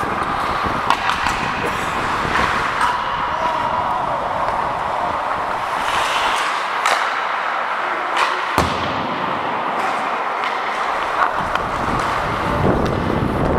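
Ice hockey in play heard from a referee's helmet: a steady rush of skating noise and air over the microphone, with sharp clacks of sticks and puck scattered through, the loudest about eight and a half seconds in.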